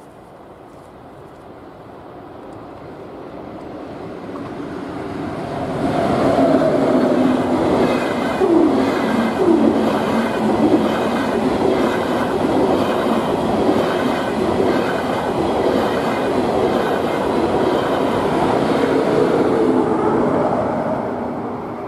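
DB class 401 ICE 1 high-speed train approaching and passing at speed. Its rumble swells over the first few seconds. It then becomes a loud, steady rush of rolling wheels with a rhythmic wheel clatter and a brief falling whine about eight to ten seconds in, before fading near the end as the last cars go by.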